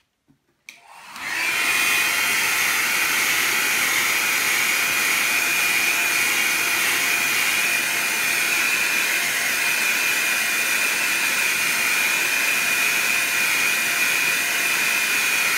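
Handheld hair dryer switched on about a second in and running steadily with a high whine, blowing over wet watercolour paper to dry the paint.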